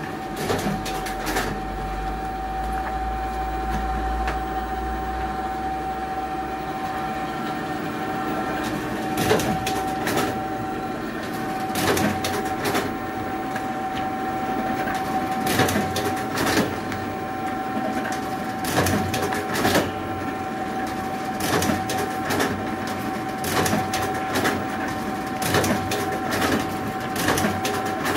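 Duplo DBM-500 spool wire stitching machine running: a steady motor hum with a steady high tone, and sharp mechanical clacks as stitches are driven, coming every second or two.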